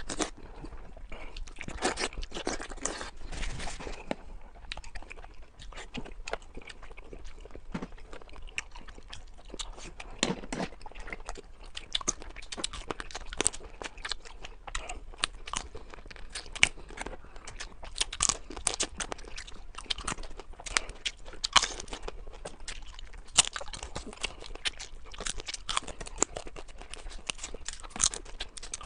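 Close-miked eating: a person chewing and biting food, with many irregular sharp crunches and clicks.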